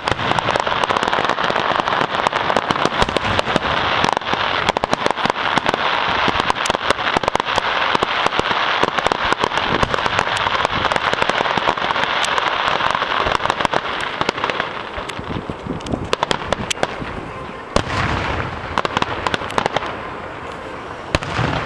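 Fireworks grand finale: a dense barrage of rapid bangs over continuous crackling, thinning to fewer, scattered bangs about two-thirds of the way through.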